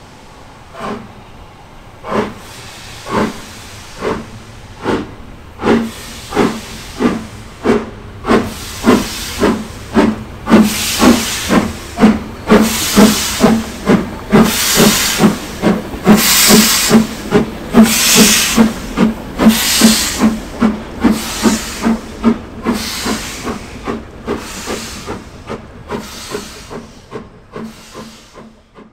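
Steam locomotive pulling away under power: hissing exhaust beats that start about one a second and quicken to about two a second. They grow loud as it passes close by and fade away near the end.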